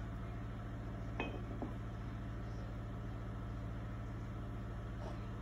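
Light clinks of stone tile knocking against stone tile as tumbled stone subway tiles are handled and set into thinset: two close together about a second in and a faint one near the end, over a steady low hum.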